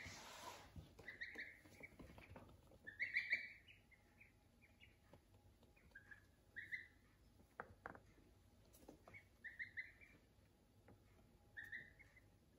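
Ducklings peeping: short clusters of quick, high peeps every second or two, the loudest cluster about three seconds in. A few faint clicks come in between.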